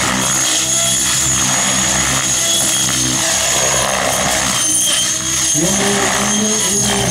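Avant Aurora 90 electric radio-control helicopter flying hard low maneuvers: its electric motor gives a steady high whine over the whir of the spinning rotor blades.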